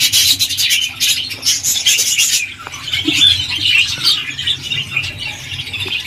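A colony of budgerigars chattering: many rapid, overlapping high chirps and squawks, busiest in the first couple of seconds.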